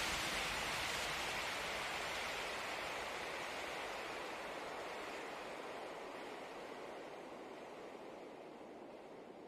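A steady rushing noise, without tone or rhythm, that fades slowly.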